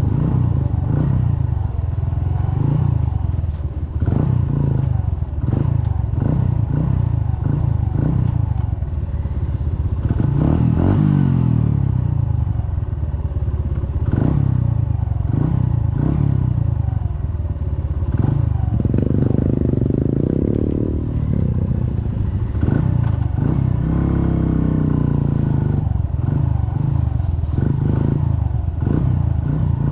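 Motorcycle engine running at low speed over a rough dirt road, with clattering knocks as the bike rides over bumps. The engine pitch rises and falls a few times, most clearly about ten, nineteen and twenty-three seconds in.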